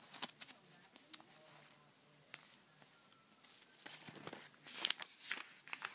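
Glossy paper coupon insert rustling and crackling as it is handled, with a run of small crackles and a louder rustle about five seconds in.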